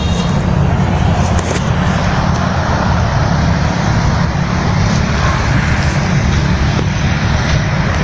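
Motor vehicle running steadily: a constant low engine hum under a wide, even rush of road noise.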